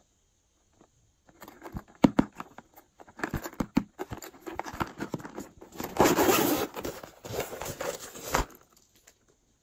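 Hands handling a stiff gold metallic plastic shell-shaped pouch: crinkling and rustling with scattered clicks and taps. The crinkling is loudest and densest for a couple of seconds near the end.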